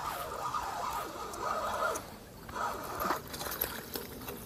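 Spinning reel being cranked in spells to reel in a hooked small pike, with a steady gear whir that stops briefly about two seconds in, and a single click about three seconds in.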